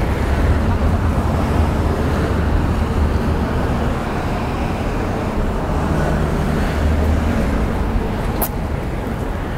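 City street traffic: cars passing on the road, a steady low rumble of engines and tyres. A single sharp click sounds about eight and a half seconds in.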